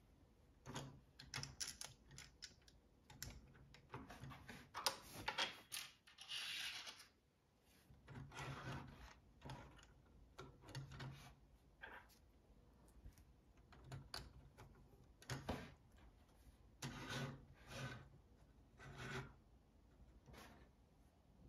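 Lego Technic plastic parts being handled and fitted together by hand: scattered clicks, knocks and rubbing as a brick and an axle are pushed into the launcher mechanism, with one longer scrape about six seconds in.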